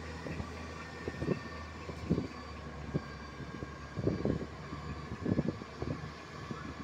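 A heavy machine's diesel engine running steadily, heard from inside its cab, with irregular knocks and rattles, a cluster of them about four and five seconds in.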